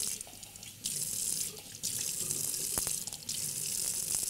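Kitchen mixer tap running a thin stream of cold water into a stainless steel sink while a glass measuring cup is filled. The splashing drops away briefly about three times.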